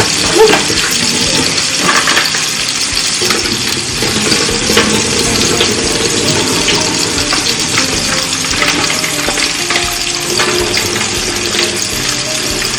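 Food sizzling and crackling on a stove: a steady hiss flecked with small pops.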